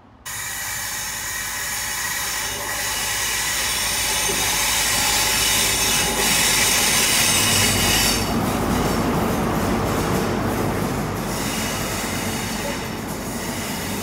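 GWR Class 43 HST diesel train arriving at a station platform, with a high steady wheel squeal through the first half. It is loudest as the power car passes, with a deeper rumble from its diesel engine about eight seconds in, then the coaches roll by, slowly fading.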